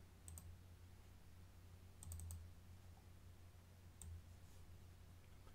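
Faint computer mouse clicks over a low steady hum: a quick double click just after the start, a run of three or four clicks about two seconds in, and a single click about four seconds in.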